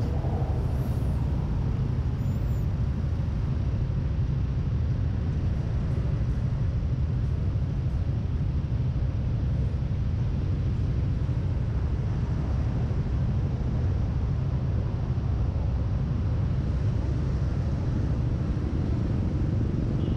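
Steady wind and road rumble from riding a Yamaha NMAX 155 scooter at an even pace, with the scooter's engine running underneath.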